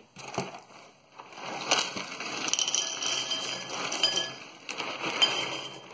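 Shreddies wheat squares poured from the box into a ceramic bowl: a dense patter of small clinks that starts about two seconds in and runs for several seconds.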